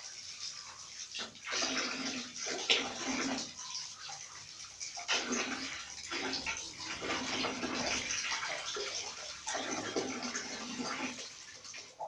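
Water running and splashing as a fan blade is washed and rinsed, coming and going in several swells.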